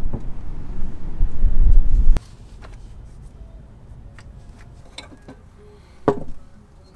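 A loud low rumble that cuts off abruptly about two seconds in. Then quiet, with scattered small clicks and a knock near the end.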